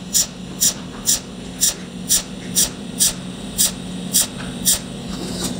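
Cold welding machine's torch firing a rapid run of pulsed spot welds along a sheet-metal seam: a short, sharp hissing crackle about twice a second, some ten in a row, over a steady low hum. The pulses stop shortly before the end.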